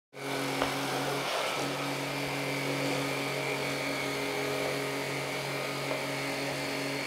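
Tineco Pure One S12 cordless stick vacuum, with its 450-watt digital motor, running steadily as it is pushed over a wood floor. It gives a constant hum with a high whine over a rush of air. The hum dips briefly about a second and a half in.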